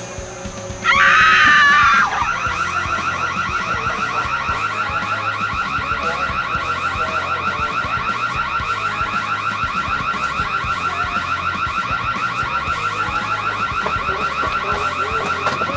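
A car alarm going off: a loud warbling blast about a second in, then a fast, evenly repeating siren-like warble.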